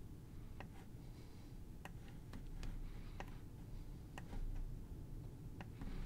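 Clicks of a computer mouse and keyboard, a dozen or so short clicks at irregular intervals, over a low steady hum.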